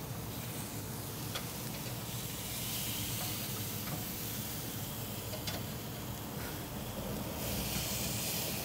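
Burger patties sizzling steadily on a hot grill grate over direct flame, with a couple of faint clicks from a metal spatula as they are turned.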